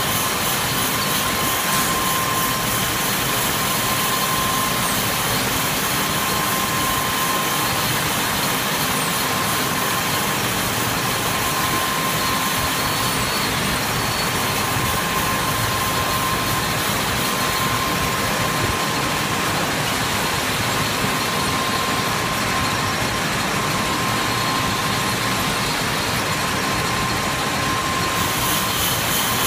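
Manual lathe running and cutting a titanium bar: a steady machining noise, with a thin whine that comes and goes every few seconds.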